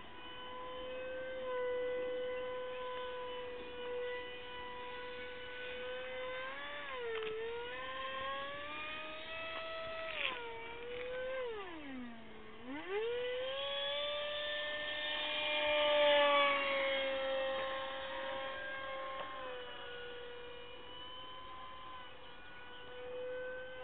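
Electric RC model airplane's motor and propeller whining steadily overhead. About halfway through the pitch swoops far down and climbs back up, and the whine is loudest a few seconds later before settling steady again.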